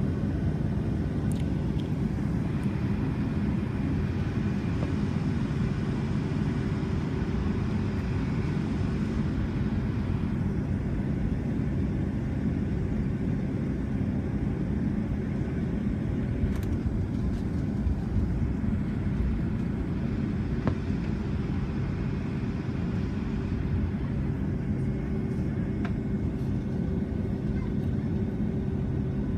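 Cabin noise of a Boeing 757-200 taxiing, heard from a window seat over the wing: the steady low rumble and hum of its turbofan engines at taxi thrust, unchanging throughout.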